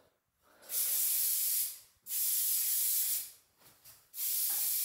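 Aerosol hairspray can sprayed in three hissing blasts of about a second each, with short gaps between.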